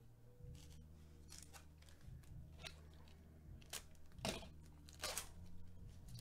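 Trading-card pack wrapper being torn open and crinkled by gloved hands: a string of short, faint crackling tears, the loudest about four seconds in.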